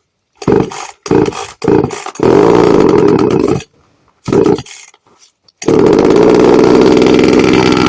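Chainsaw engine revving in three short bursts, then a longer rev of about a second and a half. After a pause and one more short burst, it settles into a steady, sustained high-revving run.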